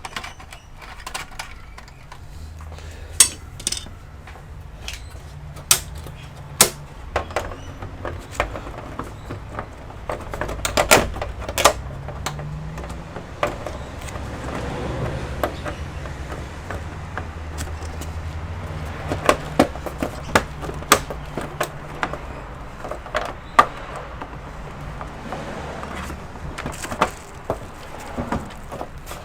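Scattered clicks and knocks of parts and tools being handled while an all-in-one computer is worked on, irregular and sometimes several in quick succession, over a steady low hum.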